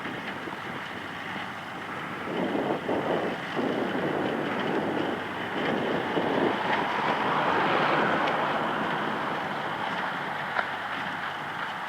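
A John Deere 3040 tractor and a Köla Rivale 2 small-square baler working in hay, heard as a steady mechanical rumble, with wind gusting across the microphone.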